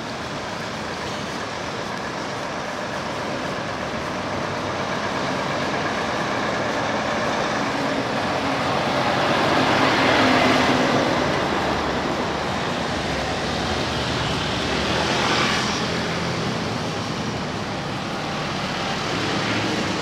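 Road traffic passing close by: cars and a large box truck driving past, the truck loudest about halfway through, with another vehicle passing a few seconds later.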